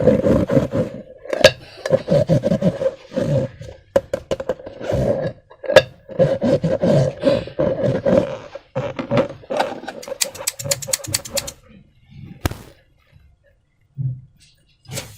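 A rubber balloon's neck buzzing and squelching in a steady rough drone as slime and air are squeezed through it, with a quick run of rattling flutters just before it stops about eleven seconds in. A few soft clicks and taps follow.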